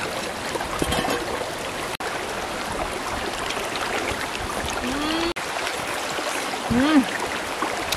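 Shallow rocky stream flowing and trickling steadily. Two short pitched vocal sounds rise over it, about five and seven seconds in.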